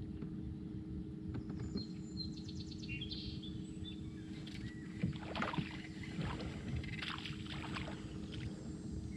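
A boat motor running steadily under birds chirping and trilling now and then.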